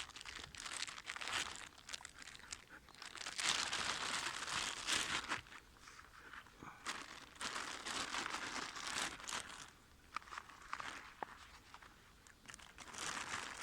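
Crinkling and tearing of a fire-starter packet's wrapper as a pre-made fire starter is unwrapped by hand, in irregular bouts.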